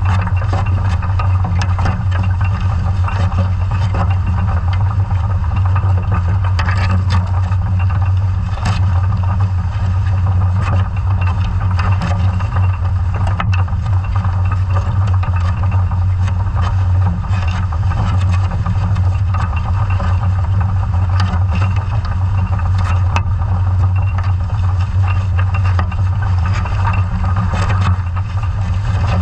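Underwater recording of a towed scallop survey dredge: a steady low drone from the towing vessel's engine and propeller carried through the water, with scattered sharp clicks and knocks from the dredge gear.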